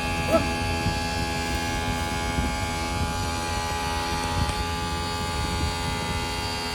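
Steady low mechanical hum, with a small click about a third of a second in.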